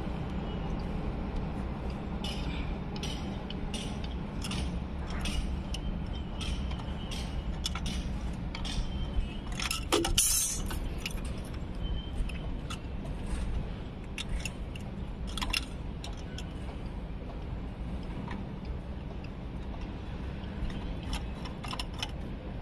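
Plastic pipe fittings being handled and screwed together by hand while a union is fitted: scattered small clicks and taps of plastic parts, with one louder clatter about ten seconds in, over a steady low rumble.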